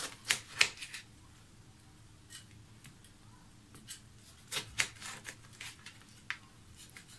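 Kitchen knife cutting a lemon into quarters on a wooden cutting board: irregular short clicks and knocks of the blade, busiest in the first second and again around the middle.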